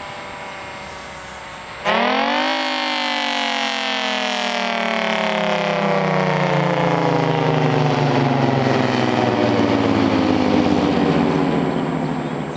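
Federal Signal Thunderbolt 1000T tornado siren sounding. About two seconds in, its falling tone jumps suddenly louder and briefly rises in pitch, then glides slowly down as the siren winds down, fading near the end.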